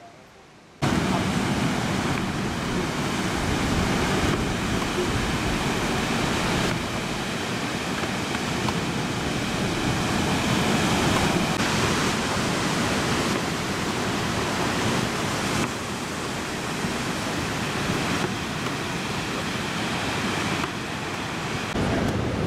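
Ocean surf breaking on a beach, a steady rush of water noise with wind on the microphone, starting suddenly about a second in; its level steps down and up at a few cuts.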